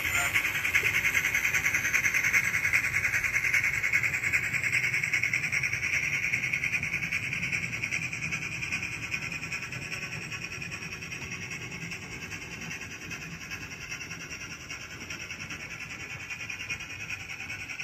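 Sound decoder in an HO scale Bachmann three-truck Shay model locomotive playing rapid steam chuffing and hiss through its small speaker, with the cars' wheels rolling on the track. It fades slowly as the train moves away, then holds steady.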